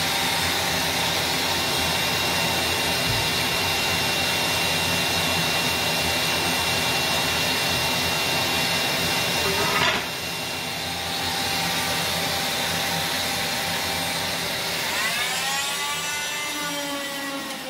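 Electric motor running steadily with a whine. It gets a little quieter about ten seconds in, and near the end its pitch glides up and then levels off.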